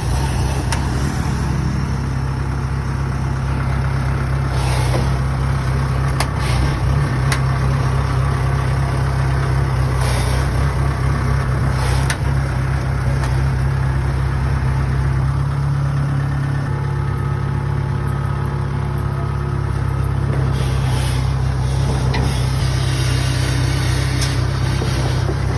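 Kubota DC70G rice combine harvester's diesel engine running steadily, a constant low drone.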